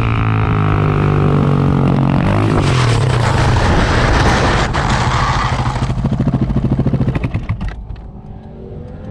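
Motorcycle engine running at speed, its note dropping about two and a half seconds in. Later it turns into a rapid, uneven pulsing as the bike slows, fades, and cuts off abruptly at the end.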